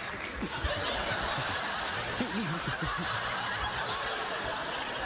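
Studio audience laughing steadily, a dense crowd laugh with no break.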